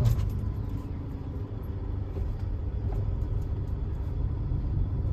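Small Suzuki hatchback's engine and road rumble heard from inside the cabin, a steady low drone that grows slightly louder as the car moves off in traffic.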